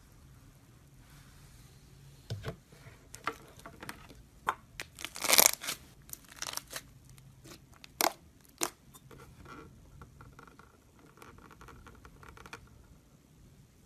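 Slime being worked by hand: a run of sticky clicks and pops, the loudest a crackling burst about five seconds in, then only faint handling noise for the last few seconds.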